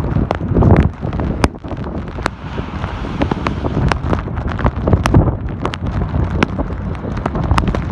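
Blizzard wind gusting hard against the microphone, a heavy low rumble that swells and eases, with irregular sharp ticks scattered throughout.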